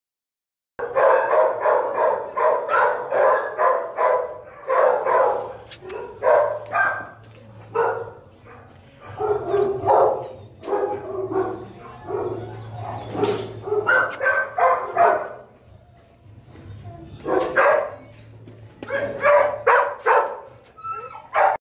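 Dog barking repeatedly in quick runs of short barks with pauses between, over a steady low hum. The barking starts about a second in.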